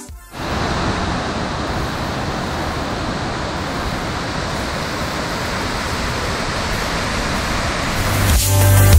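Steady rush of a waterfall running high after heavy rain, an even noise that holds without change. Electronic music with a heavy bass beat cuts in near the end.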